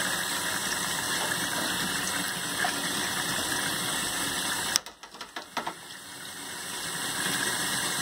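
Steady rushing noise that drops away abruptly a little before five seconds in, with a few clicks, then slowly builds back up.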